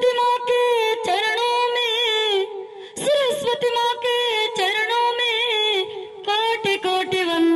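A woman singing solo into a handheld microphone, with no accompaniment heard: long held notes with wavering, ornamented pitch, breaking off briefly about three seconds in and again near six seconds.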